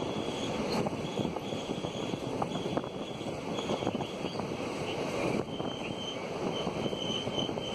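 Running noise of a moving Indian Railways passenger coach: a steady rush of wind and wheels on the track, with scattered clicks and a thin high squeal that comes and goes.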